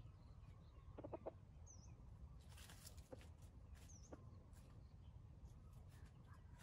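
Faint, low clucks from a junglefowl rooster, three quick ones about a second in, with a few soft rustles and clicks among them.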